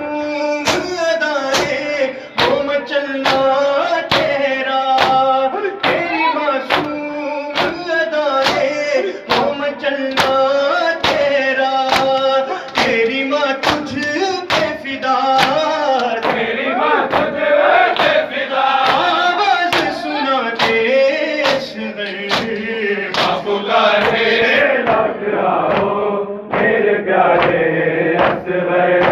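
Men chanting a noha, a Shia lament, into a microphone: a lead male voice with others joining, over a steady beat of sharp chest-beating (matam) slaps at about two a second.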